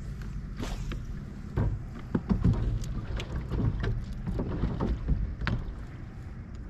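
Small waves slapping against the hull of a bass boat, with wind buffeting the microphone as a steady low rumble. A run of irregular knocks and slaps comes between about one and a half and five and a half seconds in.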